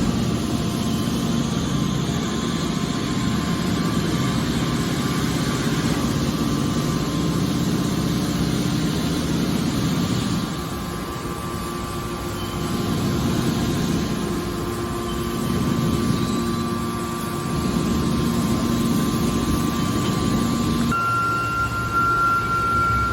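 Hydraulic scrap car baler running, its engine and hydraulic pump giving a steady mechanical drone. The drone drops in level about ten seconds in, and near the end a high steady whine starts.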